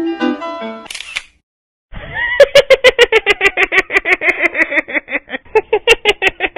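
Light plucked-string background music stops with a short swish about a second in; after a brief gap, a rapid, chattering laugh-like sound effect follows, short pulses at about seven a second.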